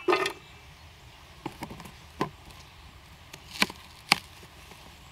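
Knife cutting an onion into big chunks on a cutting board: a handful of sharp, separate chops at irregular spacing, the two loudest about three and a half and four seconds in.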